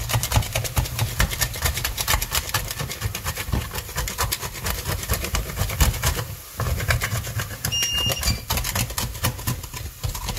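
White wine sizzling and bubbling in a hot enamelled casserole pot while a wooden spoon scrapes the stuck, browned bits off the bottom: deglazing. Dense rapid crackling over a low rumble of scraping, with a brief let-up a little past halfway.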